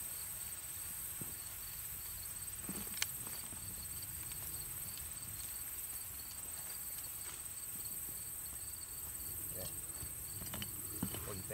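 Steady, high-pitched chorus of insects trilling in the grass, with one sharp click about three seconds in.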